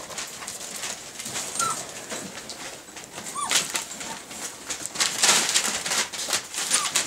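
Schnauzer puppies giving a few short, high whimpers, over the crackle of newspaper and scrabbling paws in their wire pen, with two louder stretches of rustling about three and a half seconds in and just after five seconds.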